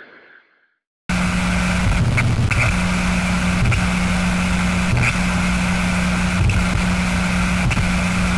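Abstract sound effect: the tail of one effect fades out, and after a brief silence a loud, harsh noise drone starts abruptly about a second in. A low hum under it cuts out and resumes every second or so, with occasional sharp clicks.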